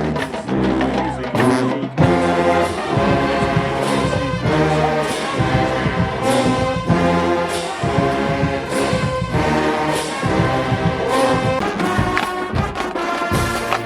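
Marching band playing a loud brass tune, trombones and trumpets holding chords over a regular beat.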